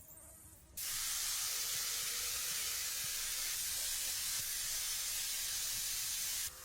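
A steady spraying hiss that starts abruptly just under a second in and cuts off abruptly shortly before the end.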